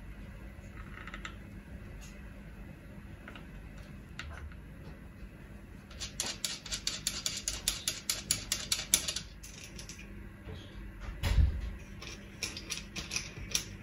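A rapid run of small clicks, about eight a second for some three seconds, as a crimped ring-terminal lead is fastened onto the tap bolt of a copper-wire loading coil. A single thump follows, then a few scattered clicks.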